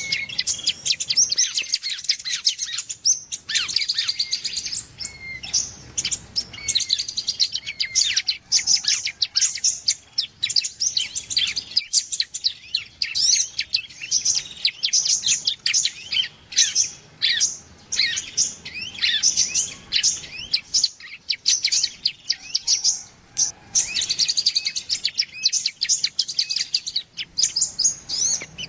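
Small-bird lure recording: prinia (ciblek) and sunbird (kolibri) calls, a dense, nearly unbroken stream of rapid high-pitched chirps and trills, thinning briefly a little past two-thirds of the way through.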